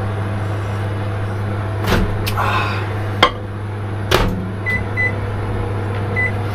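Steady low hum of an RV air conditioner running, with a few sharp knocks and clinks at the counter and three short high beeps in the second half.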